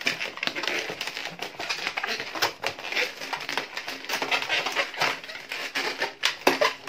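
Long latex modelling balloons squeaking and creaking as they are twisted and wrapped around each other, an irregular run of rubbery squeaks.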